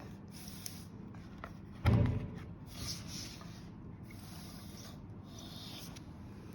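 Hands handling a record album and its packaging: intermittent rubbing and rustling, with one loud thump about two seconds in.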